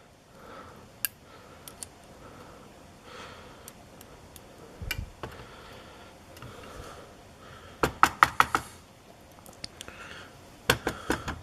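Small sharp clicks and taps of metal lock parts and tools being handled on a work surface. Scattered single clicks give way to a quick run of several clicks a little before the 8-second mark and another run near the end.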